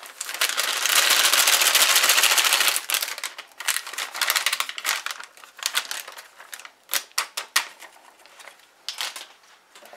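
Plastic inner bag of a boxed cake mix crinkling as the powdered mix is shaken out into a bowl: a dense crackle for the first few seconds, then scattered sharp crinkles.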